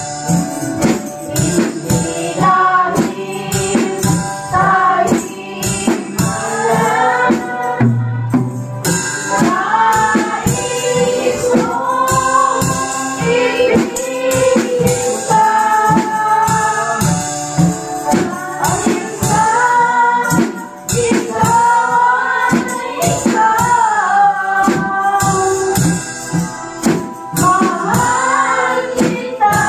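Live praise band: a woman sings lead in Tagalog with backing singers, over a drum kit played with sticks in a steady beat.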